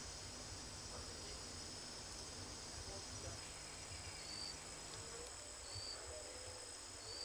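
Faint forest ambience: a steady high insect buzz, with a short high chirp repeating about every two seconds.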